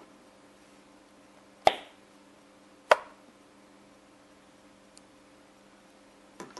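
Two sharp clicks about a second apart, then a fainter double click near the end, as a phone and its silicone suction-cup plunger stand with a wooden handle are handled on a desk.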